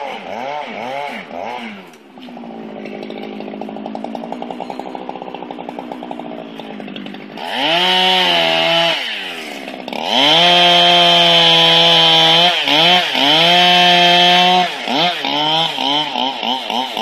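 Two-stroke chainsaw revving in quick blips, idling for a few seconds, then held at full throttle in two long stretches, the second the loudest, as it cuts limbs off a felled tree trunk. Near the end it goes back to short rapid revs.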